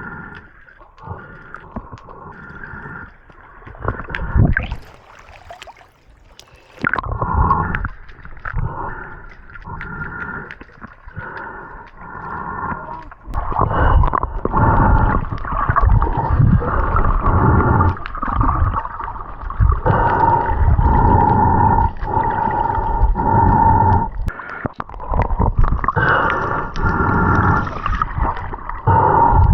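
Muffled water sloshing and gurgling, in scattered surges at first and then a louder, continuous wash from about halfway through.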